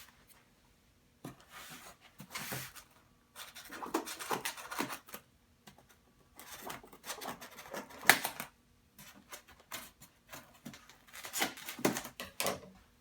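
Cardboard carton being worked open and an IBM Model M keyboard pulled out: irregular scraping and rustling of cardboard in short bursts with pauses, and a sharp knock about eight seconds in.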